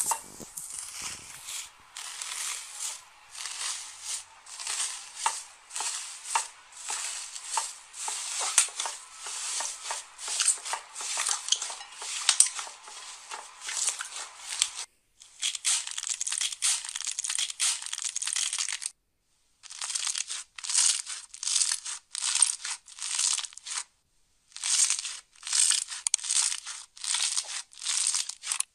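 Hands pressing and squeezing slime: first a puffed-up slime under a crinkly foil sheet, later a fluffy foam slime, each press giving a crackling, crinkly squish. The presses come in repeated bursts about one or two a second, with two short breaks partway through.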